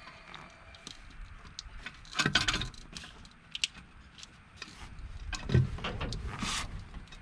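Metal clinks and rattles of bolts and hand tools as an intake manifold is lined up and bolted onto an engine. There are scattered clicks, a louder rattle about two seconds in, and a knock with more rattling around five and a half seconds in.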